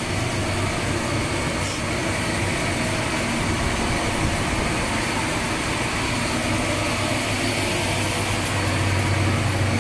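Loud, steady blower noise in a tugboat's engine room, over a low machinery hum.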